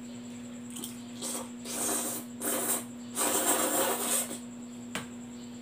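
A man eating very spicy instant noodles, slurping and puffing air through pursed lips. The sounds come as a string of airy, breathy bursts; the longest is about three seconds in. A single light click comes near the end.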